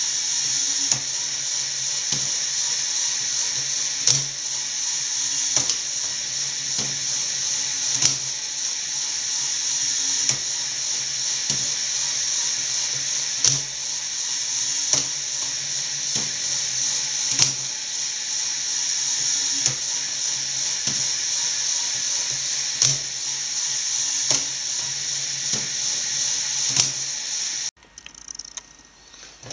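Lego Technic mechanical loom running under its electric motor: a steady whir of motor and gears, with a sharp clack about every second and a half as the mechanism goes through its cycle. The sound drops away abruptly near the end.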